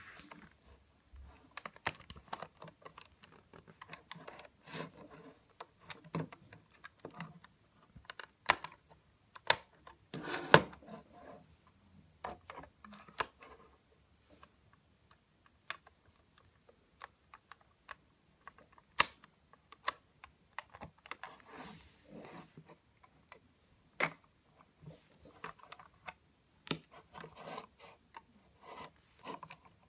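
LEGO bricks clicking and sliding as a LEGO puzzle box is worked by hand: irregular plastic clicks and short scrapes as pieces and a drawer are pushed and pulled, with a few sharper clicks along the way.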